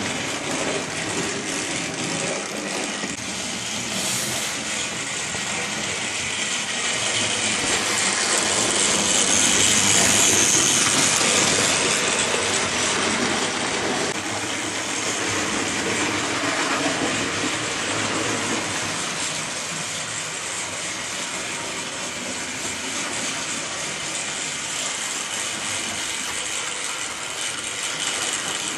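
00 gauge model train running along its track, a steady mechanical rattle and whirr that swells to its loudest about ten seconds in as the train passes close.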